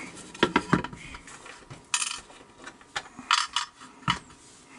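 Small metal tools and lock parts being handled on a workbench: a string of separate light clinks and knocks, several in the first second and a few more spread through the rest.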